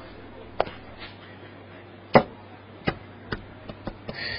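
A series of sharp knocks or clicks at uneven intervals, about seven in all, the loudest about two seconds in, over a low steady hum.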